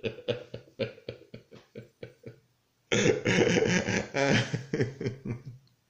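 A man's voice making non-speech sounds: a run of short breathy pulses that die away, then, after a brief break about two and a half seconds in, a longer and louder stretch.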